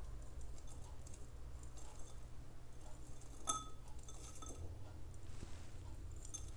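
Light clinks of a glass dish against a glass beaker as grated beeswax is scraped in with a silicone spatula, with soft scraping ticks and one sharper clink about three and a half seconds in.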